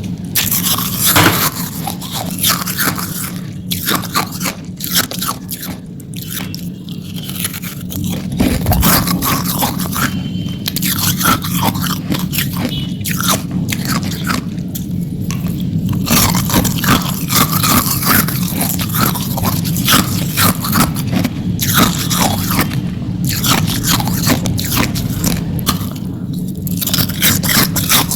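Hard ice being bitten and chewed close to the microphone: a dense, irregular run of crisp crunches and crackles that goes on throughout.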